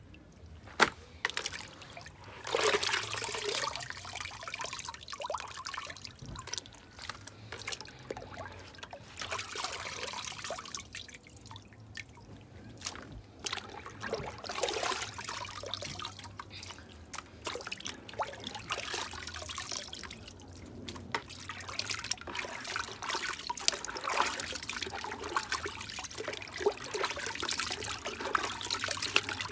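Raw meat being washed by hand in a plastic bucket of water: irregular sloshing, squeezing and water trickling and dripping back into the bucket as the pieces are lifted out, with a few sharp splashes.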